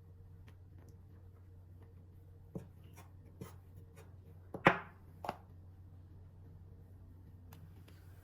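Scattered light knocks and clicks of kitchen utensils and dishware being handled, the loudest about four and a half seconds in, over a low steady hum.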